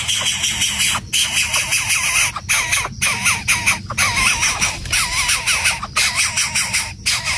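A bird gives a quick run of short, repeated squawking calls for a few seconds in the middle, over a loud, rapidly pulsing hiss.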